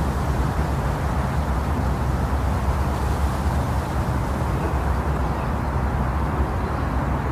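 Steady white noise of the kind played to lull babies to sleep, meant to imitate the sound heard in the womb: an even, deep hiss, heavy in the low end, with no beat or change.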